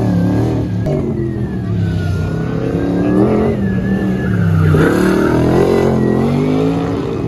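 Car engines being driven hard around a cone course, revving up and easing off over and over so the engine pitch keeps rising and falling.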